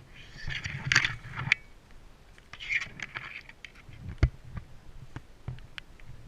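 Rustling and scraping of clothing and gear as someone moves, in two bursts, with scattered sharp clicks and one louder snap a little past four seconds.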